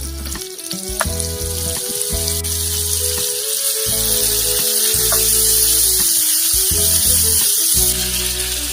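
Martabak batter sizzling in a hot pan, a steady hiss that builds over the first few seconds and eases near the end, over background music.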